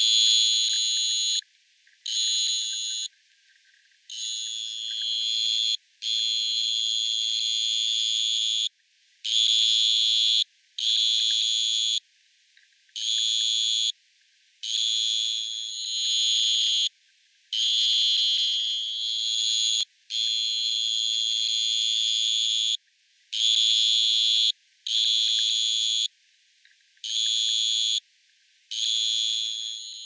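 Two-spotted tree cricket (Neoxabea punctata) singing: a high-pitched trill repeated in long bouts of one to three seconds, each broken off by a short pause.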